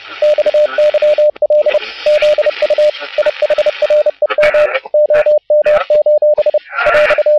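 Morse code (CW) on an amateur radio receiver: a single beeping tone keyed on and off in dots and dashes over band hiss and static.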